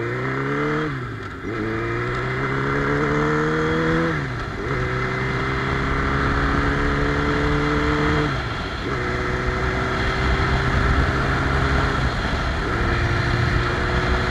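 Motorcycle engine accelerating and shifting up through the gears: the revs climb and then dip at each shift, about one, four, eight and a half and twelve and a half seconds in, settling toward a steadier cruise. Wind rushes over the microphone throughout.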